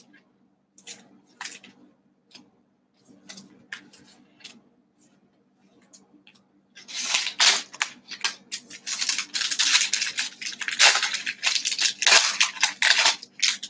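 Trading cards handled and laid on a table, with soft slides and taps. Then, from about seven seconds in, the foil wrapper of a 2020 Select football card pack crinkles loudly as it is handled and torn open.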